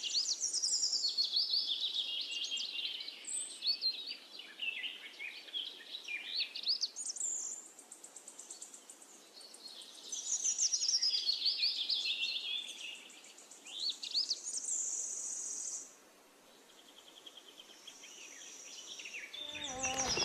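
Birds singing and calling: a busy run of varied chirps, whistles and rising and falling trills, with a held high tone for a second or two at a time, quieter for a few seconds midway.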